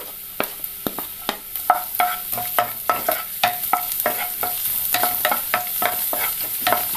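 Garlic and ginger sizzling in hot coconut oil in a non-stick frying pan, with a wooden spatula stirring and knocking against the pan about three times a second; each knock leaves the pan ringing briefly.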